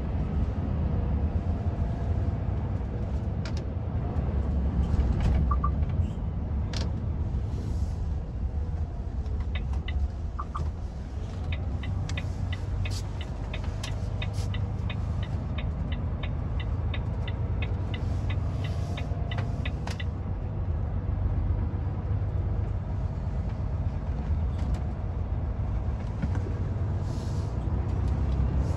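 Truck on the move: steady low engine and road rumble. Midway, a run of regular clicks comes in, about two or three a second, for some eight seconds.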